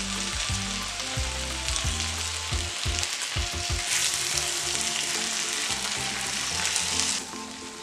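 Pigtails and barbecue sauce sizzling in a hot cast iron skillet as they are stirred with a silicone spatula. The sizzle eases off about seven seconds in.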